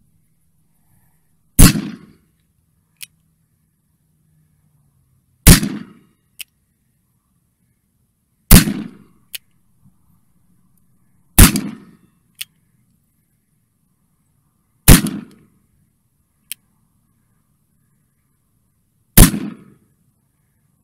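.44 caliber Colt 1860 Army cap and ball revolver fired six times with black powder, the shots about three to four seconds apart. Each shot is a loud report with a short fading tail. About a second after each of the first five shots comes a faint, short click.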